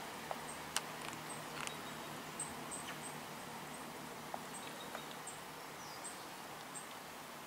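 Faint, high-pitched bird chirps repeating about twice a second, over a steady low hum and a few sharp clicks, the loudest about a second in.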